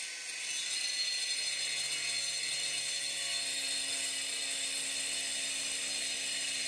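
A motor running steadily, with a constant hum under a strong high hiss.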